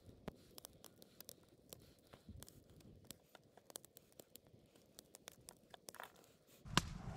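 Faint, scattered clicks and soft wet handling sounds as raw grouse breast is cut into strips with a knife on a wooden board. A louder rustling starts near the end.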